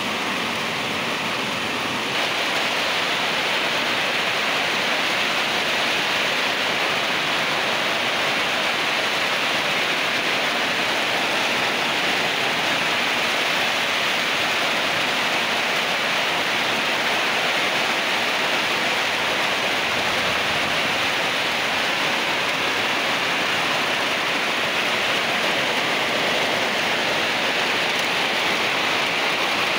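Heavy rain pouring steadily onto corrugated metal roofs and trees, a dense unbroken hiss that grows a little louder about two seconds in.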